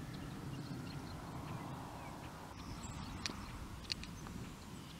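Distant rolling thunder as a faint, steady low rumble, with a brief bird chirp and two small sharp clicks a little past the middle.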